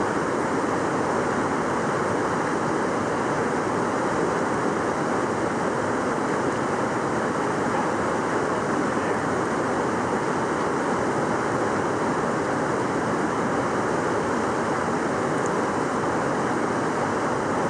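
Fast-flowing mountain river running over rocks and riffles, a steady, unbroken rush of water.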